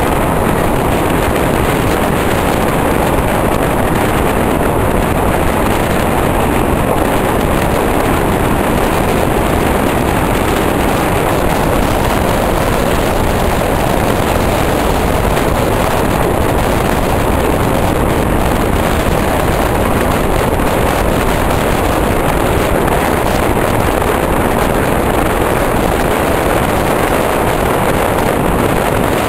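Electric passenger train running at speed, heard at an open window: a loud, steady rush of wind and wheel-on-rail noise, with no clear rhythm and no change in pitch or level.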